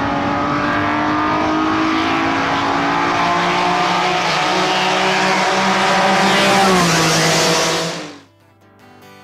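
Race car engine running at high revs, its pitch shifting up and down and then dipping, before cutting off suddenly about eight seconds in. A guitar starts faintly just after.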